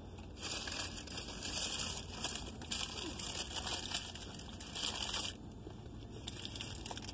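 Crinkling and rustling of paper food packaging in irregular bursts, stopping about two seconds before the end, over a low steady hum.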